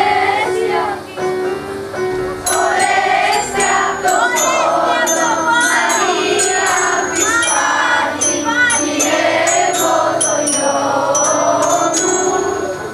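Children's choir singing in unison over an instrumental accompaniment; the voices come in strongly about two and a half seconds in, with short bright high-pitched strikes running through the accompaniment.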